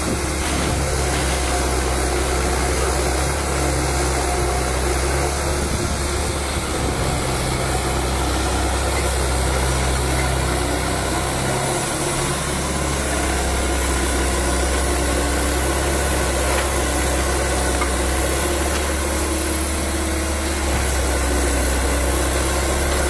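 Liebherr 904 wheeled material handler's diesel engine running steadily under hydraulic load, its low note shifting a few times as the boom and grab work.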